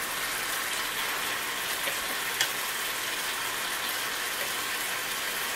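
Hot fat sizzling steadily on the stovetop as food fries, with a couple of faint clicks about two seconds in.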